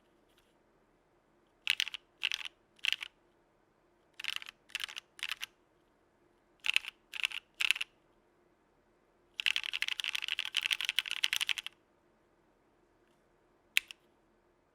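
Mechanical keyboard with lubed Kailh Cream v2 linear POM switches on an aluminum plate, with CRP R4 keycaps: three sets of three keystrokes about half a second apart, then a fast burst of typing lasting about two seconds, and a single last keystroke near the end.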